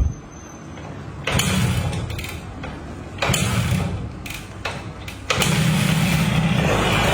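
Honda Win 100 motorcycle's single-cylinder four-stroke engine being kick-started. Two kicks each turn it over briefly and die away. On a third kick, about five seconds in, it catches and keeps running steadily.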